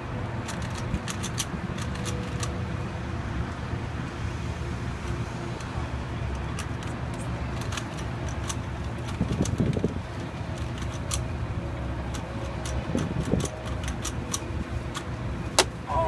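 Plastic Rubik's cube layers clicking in quick, irregular runs as they are turned, over a steady low mechanical hum. A single sharp knock comes near the end as the cube is set down on the metal counter.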